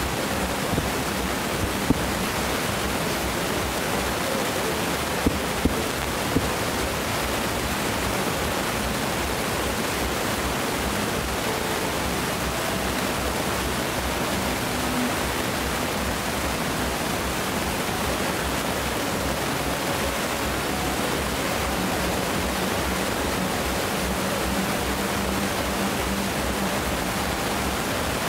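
Steady rushing noise, with a few sharp bangs from distant fireworks shells bursting in the first several seconds.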